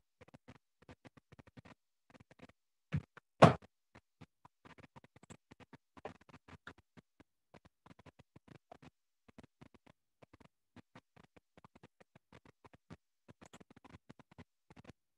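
Faint, irregular clicking and crackling, several clicks a second, with two louder knocks about three seconds in.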